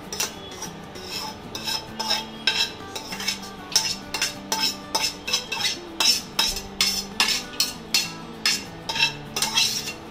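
A metal spoon scrapes and taps against the inside of a kadhai (wok), knocking roasted pumpkin seeds and raisins out onto a steel plate. The sharp scrapes and clinks repeat a couple of times a second and grow louder after the first two seconds.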